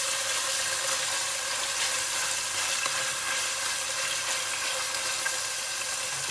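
Chicken pieces sizzling in hot oil in a non-stick pot, turned now and then with a silicone spatula, as they fry until firm. A steady hiss with small crackles and scrapes.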